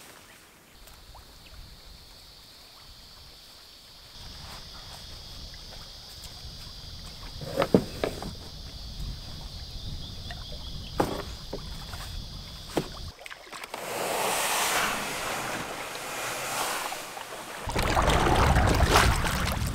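A few sharp knocks of gear being loaded into an Old Town Discovery canoe over a steady high buzz. About two-thirds in, this gives way to a rush of water and wind on the microphone as the canoe is pushed out onto the river, louder near the end.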